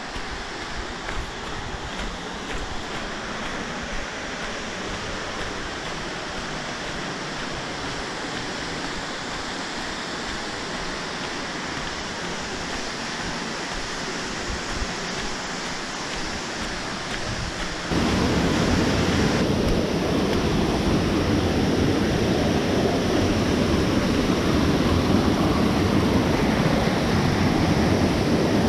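Steady rush of ocean surf breaking on rocks. About eighteen seconds in it suddenly becomes louder and deeper.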